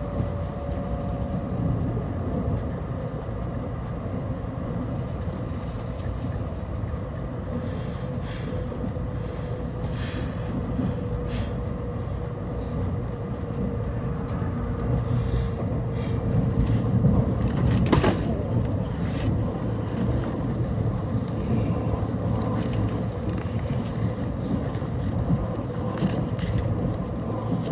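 Cabin noise of a Puyuma Express (TEMU2000) electric train running on the line: a steady rumble of wheels on rail, with a faint whine that slowly drops in pitch. A single sharp click sounds about eighteen seconds in.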